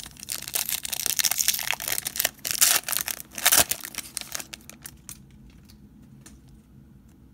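Foil wrapper of a 2017-18 Panini Status basketball card pack crinkling and tearing as it is pulled open, loud for about four seconds. It then goes quiet but for a few faint clicks as the cards are handled.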